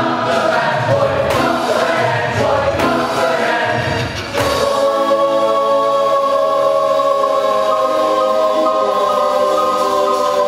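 A musical-theatre ensemble sings in chorus with instrumental accompaniment. About four seconds in, the voices settle onto a long held chord.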